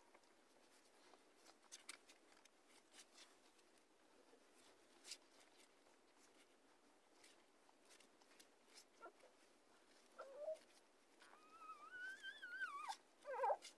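Newborn puppies nursing: faint, scattered clicking suckling sounds, then near the end a puppy whimpers with a short squeak, a wavering high-pitched whine of about two seconds, and one sharp squeal.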